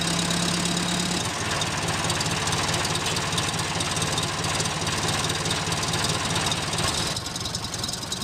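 The motor of a homemade toy tractor running steadily as it drives, with a shift in its tone a little over a second in.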